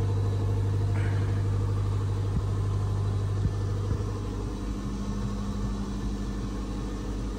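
Machinery running in a motor yacht's engine room: a steady low hum whose tone shifts a little about halfway through.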